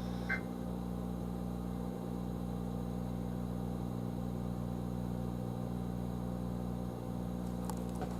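A steady low hum made of several evenly spaced tones, unchanging throughout.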